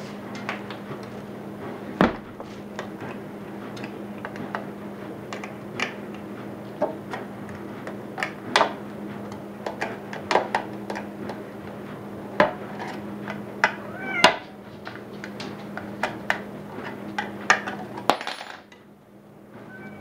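Metal paint-can opener levered around the rim of a gallon paint can's lid: irregular sharp metal clicks and taps, with a few short squeaks partway through, the last click coming near the end as the lid comes free. A steady low hum runs underneath.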